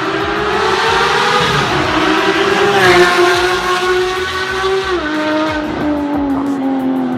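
Performance car engine and exhaust running loud with a clear pitched note, which rises slightly at first and then steps down in pitch a few times, sliding lower between the steps.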